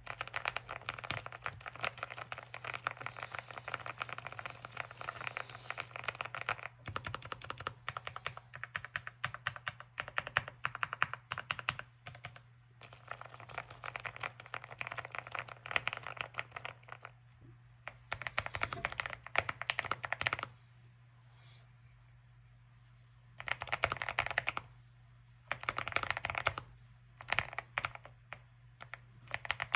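Mechanical keyboard with Gateron Milky Yellow Pro linear switches being typed on in fast, continuous runs of key clacks. The typing stops for about three seconds roughly two-thirds of the way through and pauses briefly twice more near the end. A faint steady low hum runs underneath.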